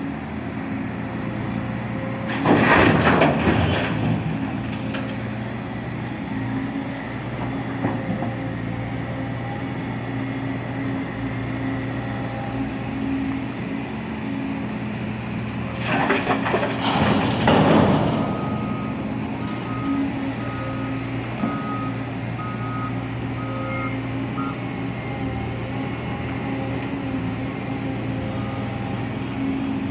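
Heavy diesel construction vehicle running steadily with its reversing alarm beeping about once a second at times. Two loud bursts of rushing hiss come through, one a few seconds in and one just past halfway.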